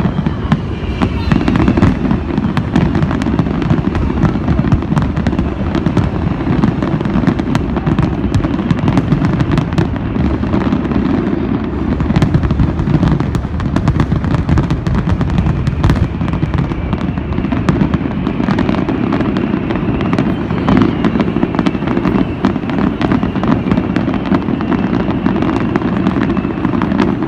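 Fireworks bursting continuously: many sharp bangs and crackles packed close together over a steady low rumble, with no pause.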